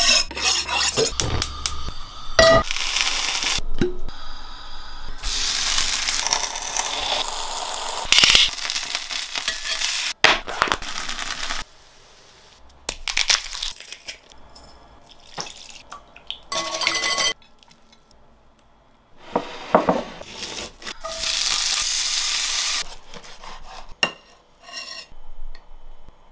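A run of kitchen sounds: a knife stroked quickly against a honing steel, stretches of food frying and sizzling, a garlic press squeezing, and clinks of utensils and dishes.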